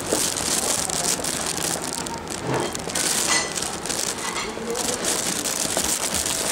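Steady background hiss with faint, indistinct voices.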